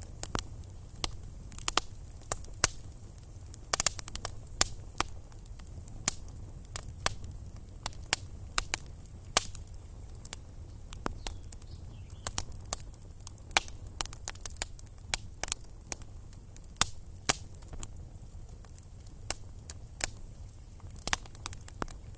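Campfire of small sticks crackling, with sharp irregular pops from the burning wood a few times a second over a steady low rumble.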